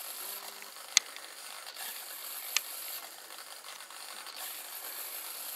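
Small RC hobby servo, driven by a servo tester on automatic, panning a camera mount back and forth: a brief buzzing hum near the start, with two sharp clicks about a second and a half apart over faint hiss.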